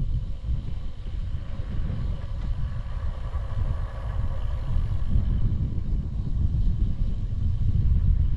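Wind buffeting the microphone of a bicycle coasting downhill, an uneven low rumble.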